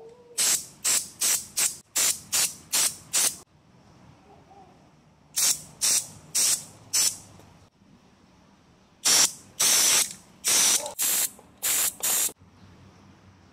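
Aerosol can of Maxima chain degreaser sprayed onto a motorcycle drive chain, hissing in short bursts. The bursts come in three runs of several each, and the last run's bursts are longer.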